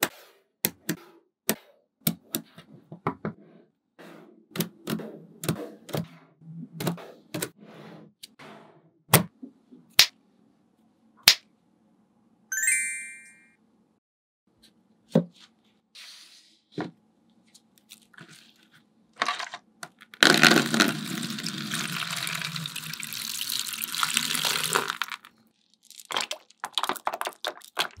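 Small neodymium magnet balls clicking and snapping together one by one, in irregular sharp clicks. A short high ringing comes about twelve seconds in. From about twenty seconds in, water pours for about five seconds.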